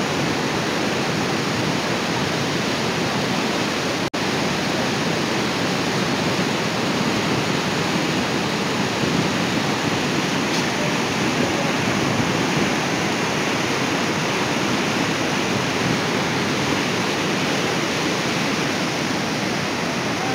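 Merced River whitewater rushing loudly over granite boulders, a steady full roar of cascading water. It breaks off for an instant about four seconds in.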